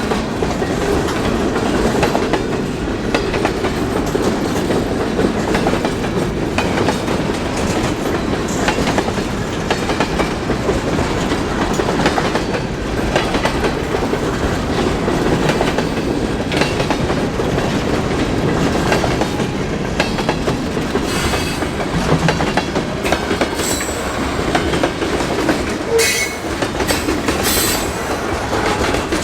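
Freight train cars rolling past at close range, their steel wheels clicking over rail joints in a steady rush of rail noise, with a few short high wheel squeals in the last few seconds.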